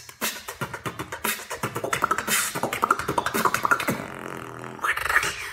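Beatboxing: a fast run of mouth-made percussion clicks and hits, easing into a steadier held sound about four seconds in, then a few last hits.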